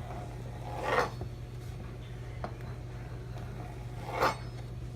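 Knife slicing through a zucchini on a cutting board: two short slicing strokes, about a second in and again near the end, with a few light ticks between, over a steady low hum.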